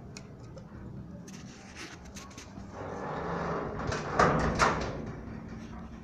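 Metal barred gate being opened: a few light clicks, then a scraping rattle with two loud clanks about four seconds in.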